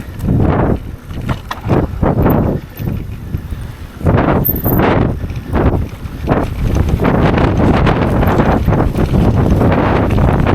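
Wind buffeting the microphone in loud gusts that come and go, then blowing more steadily from about four seconds in.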